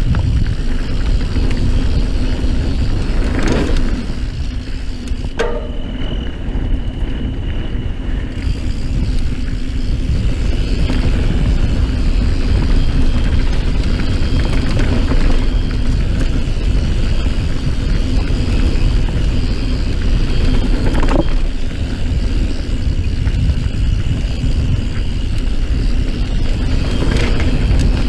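Wind rushing over the camera microphone and the rumble and rattle of a Santa Cruz Nomad full-suspension mountain bike riding fast along a dirt trail, with a few sharp knocks as it hits bumps.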